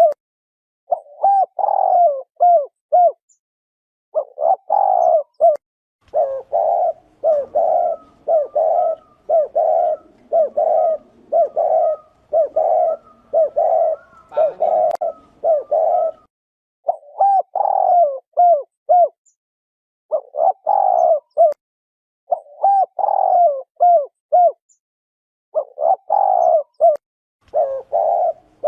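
Spotted dove cooing: short phrases of low coos repeated over and over with brief pauses between them. In the middle stretch the phrases come closer together and overlap.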